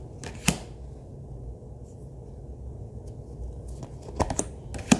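Oracle cards handled during a flip-through: a sharp card tap or flick about half a second in and a few more near the end, over a low steady hum.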